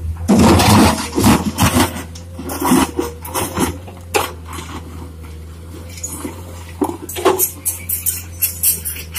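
Crawler excavator's diesel engine running steadily while its bucket scrapes into and lifts broken asphalt and soil, with irregular clattering knocks of pavement chunks, heaviest in the first two seconds.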